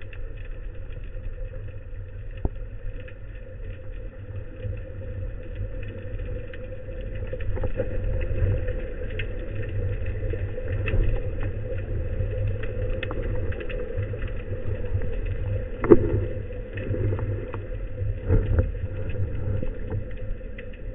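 Underwater ambience recorded on a speargun-mounted camera: a steady low rumble and engine-like hum, with scattered faint clicks and a few sharper knocks. The loudest knock comes about 16 seconds in.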